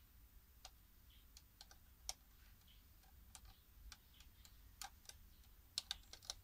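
Faint, irregular clicks with long gaps between them, a few in quick succession near the end: buttons on an old car stereo head unit being pressed while it fails to power on.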